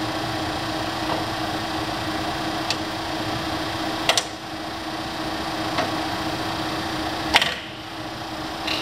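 Warner & Swasey No. 3 ram-type turret lathe running with a steady hum while its turret handwheel is worked. Sharp metallic clicks and clunks come every second or two, the loudest about four seconds in and another near the end.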